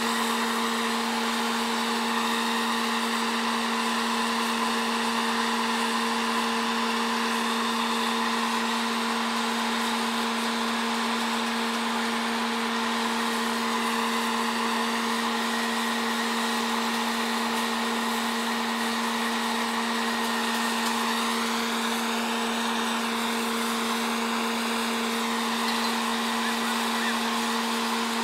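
Truck-mounted borewell drilling rig and its air compressor running at full, steady output: a loud, constant drone with an unchanging whine.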